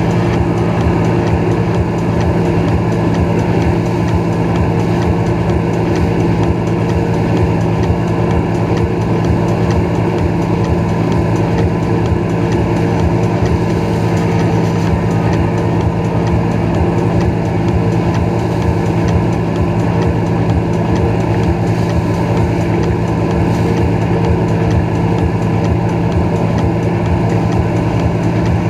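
Moomba XLV wake boat's inboard engine running at a steady, unchanging pitch while towing at surf speed, over the rush of churning wake water.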